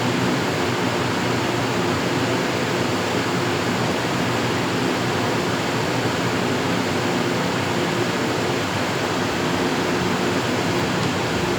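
Steady rushing noise with a constant low hum from running machinery, such as the fans and feed system of a wood-chip furnace plant.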